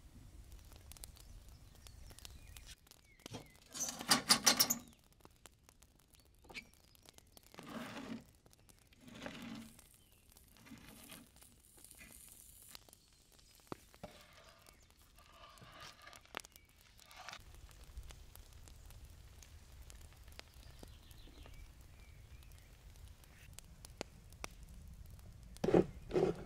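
Intermittent handling sounds of food preparation: scrapes and clicks of a wooden spoon and hands working food in a metal baking tray. The loudest is a rapid scraping burst about four seconds in, and a pair of knocks comes near the end, between quiet stretches with a low background rumble.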